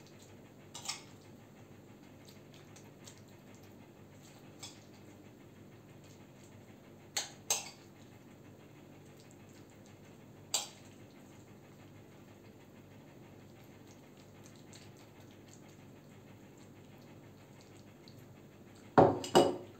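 A spoon clinking and scraping against a glass serving bowl as salad is spooned in: a few sharp separate clinks spread out, then a louder cluster of clinks near the end, over a low steady hum.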